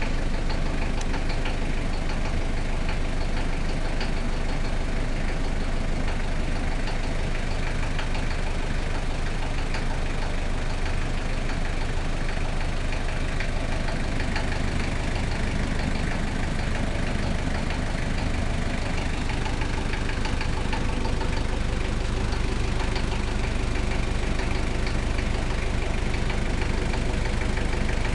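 Toyota 1KZ-T four-cylinder turbodiesel engine idling steadily, with faint irregular ticks over the running; this is the unwanted engine noise that the owner is recording.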